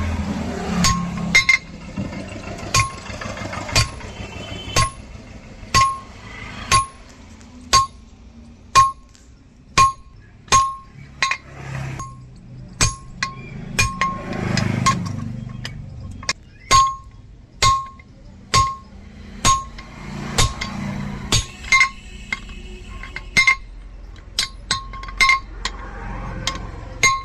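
Hand hammer striking steel on an anvil about once a second, each blow ringing briefly with a metallic clink, with quicker blows near the end: forging a tractor leaf spring into an axe head.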